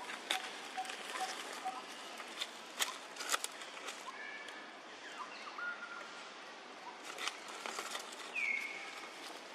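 Outdoor ambience: scattered sharp clicks and rustles, with a few short high chirping calls and one falling chirp near the end.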